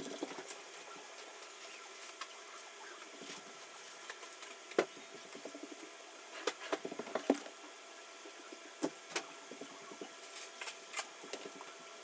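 Quiet room noise with scattered faint clicks and taps from small objects being handled.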